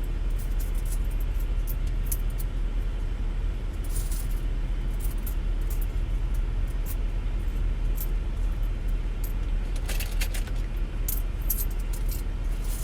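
A car's engine idling with a steady low hum inside the cabin, with light metallic jingling and clicks now and then, loudest about four and ten seconds in.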